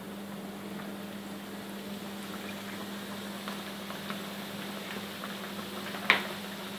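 Batter-coated bread slices deep-frying in hot oil: a steady sizzle with small scattered crackles over a low steady hum. A sharp click about six seconds in.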